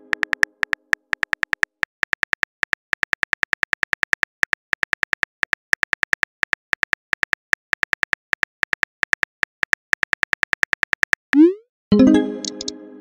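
Phone keyboard typing clicks from a texting-story app, a rapid uneven run of sharp taps for about eleven seconds as a message is typed. Near the end come a short rising swoosh and a pitched pop as the message is sent and appears.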